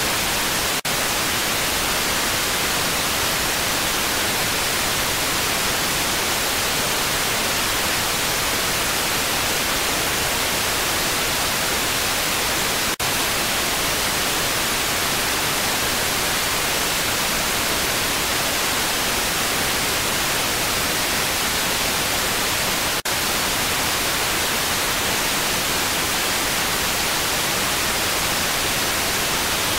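Steady, loud hiss of static with no other sound in it. It drops out for an instant three times: about a second in, near the middle and about three-quarters of the way through.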